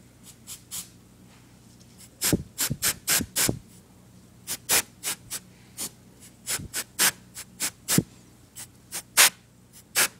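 Quick rubbing strokes in short runs, several a second, starting about two seconds in: dust being scrubbed off the inside of an opened Xbox 360 console.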